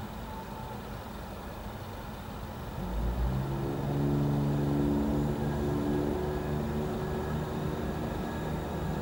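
A vehicle engine comes in suddenly about three seconds in with a low thump, then holds a steady deep hum over the idling of road traffic.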